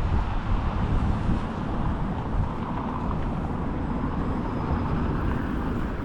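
Steady low outdoor rumble of street ambience, most like nearby road traffic, with no distinct events.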